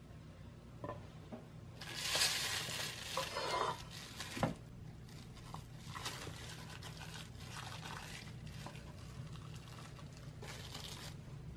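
Cling film crinkling and rustling as a chilled slab of white chocolate ganache is handled onto a wooden cutting board, loudest for a couple of seconds and ending in a knock on the board. Then softer scrapes and rustles as a knife presses down through the soft ganache and its plastic wrap.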